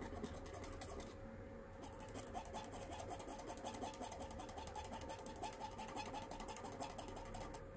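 Ceramic tweezers strumming and tapping across the fresh wire coils of a rebuildable atomizer as they are pulsed with heat, a faint, rapid scratchy ticking that gets busier about two seconds in. It is the coil break-in, done to bring hot spots to the surface.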